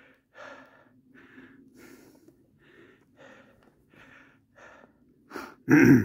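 A person breathing hard in quick, faint breaths, about two a second, as after a steep climb. A much louder rush of air against the microphone comes near the end.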